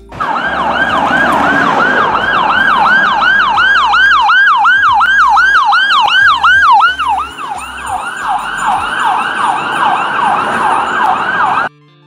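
Electronic ambulance siren on a fast yelp, wailing up and down about four times a second, loud, and cutting off suddenly near the end.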